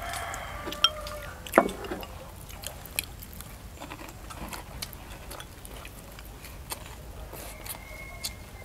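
Sounds of people eating a rice meal: a few light clicks and taps of chopsticks against bowls over a low background hum, with the strongest taps a second or two in.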